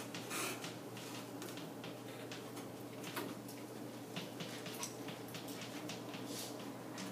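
Chalk on a chalkboard as words are written: irregular short taps and scratches, several a second, over a steady low room hum.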